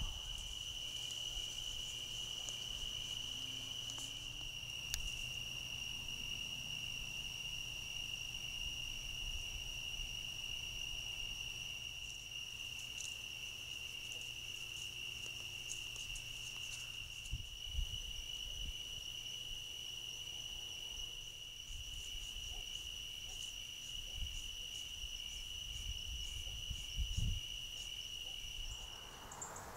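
Night insects, crickets, trilling steadily in one high continuous chorus, with a couple of soft low thumps in the second half.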